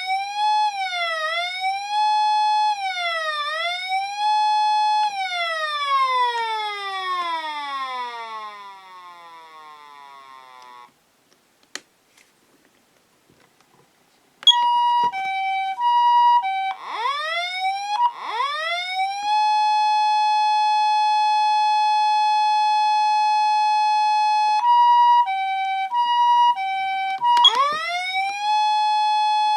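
Patlite SAP-500RBVK-N electronic siren amplifier sounding a wail that sweeps up and down, then winds down in a long falling glide and fades out about a third of the way in. After a short silence with a couple of faint clicks it switches to the high-low two-tone "pee-po" ambulance pattern, alternating with a wail tone that rises from low, holds steady for several seconds, and falls away near the end.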